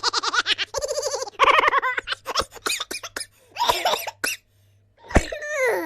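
Human laughter played as a sound effect: a run of quick, pitched laughing pulses with short breaths between them, ending in a laugh that falls in pitch about five seconds in.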